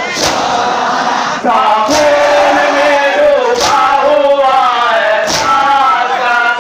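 A large crowd of men chants a Muharram nauha (lament) in unison, the sung line coming in about a second and a half in over crowd noise. Their chest-beating (matam) lands together as a sharp slap four times, about every 1.7 seconds.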